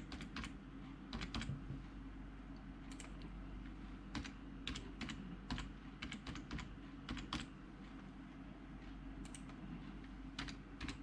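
Typing on a computer keyboard: faint, irregular clusters of keystrokes over a steady low hum, with a short pause about eight seconds in.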